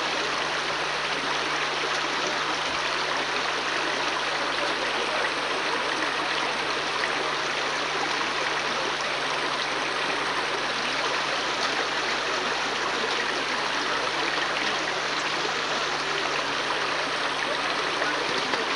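A creek running over rocks: a steady, even rushing of water that does not change, with a faint low hum underneath.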